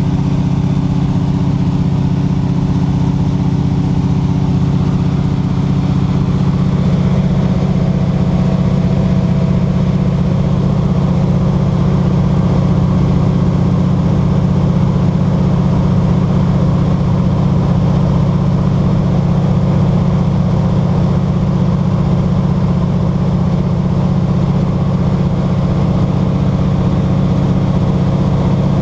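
De Havilland DHC-2 Beaver's piston engine and propeller running with a steady drone, with a slight change in tone about seven seconds in.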